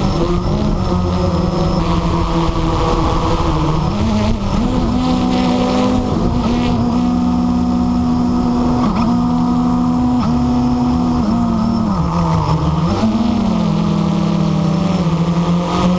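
Small electric motors and propellers of a radio-controlled aircraft running together. Their hum steps up and down in pitch every second or two as the throttle changes.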